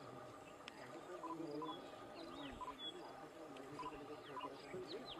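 Pack of dholes giving many short squeaks and whines over their prey, mixed with higher chirps.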